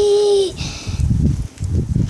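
A child's voice holding a sung note that cuts off about half a second in, followed by irregular low, muffled rumbling and rustling.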